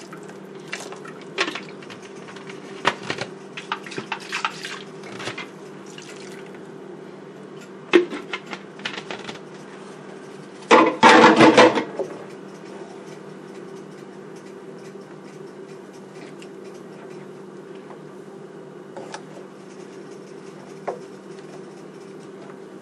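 Wooden spatula stirring blended white peanut sauce in a frying pan: liquid sloshing, with scattered clacks of the spatula against the pan. A louder burst of clatter and splashing lasts about a second near the middle. A steady low hum runs underneath.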